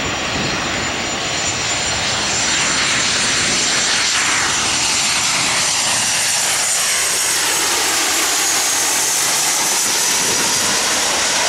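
Boeing 737 jet airliner's CFM56 turbofan engines as it passes low overhead on landing approach: a loud jet roar that swells over the first couple of seconds and then holds. A high fan whine on top slowly falls in pitch as the plane goes by.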